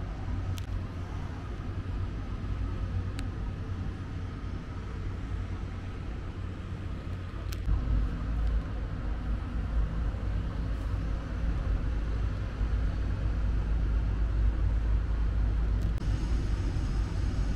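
Low, steady rumble of a river cruise ship's engines as it gets under way out of a lock, growing louder about eight seconds in, with a few faint clicks.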